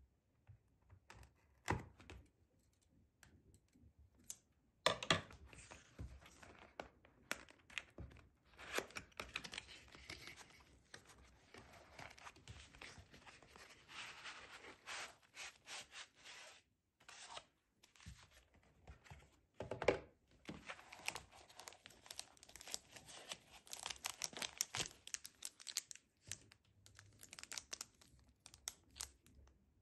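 Clear plastic shrink-wrap and sleeve packaging being torn open and crinkled by hand, with irregular crackles and a few louder knocks of the packaging against the desk.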